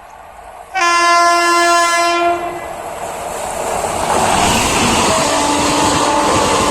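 Train horn sounds one loud blast of about a second and a half, starting just under a second in. A train then passes close, its rumble and wheel clatter building over a couple of seconds and staying loud.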